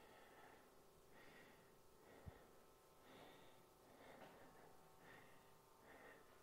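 Near silence: faint, regular breathing about once a second, with one soft tick a little over two seconds in.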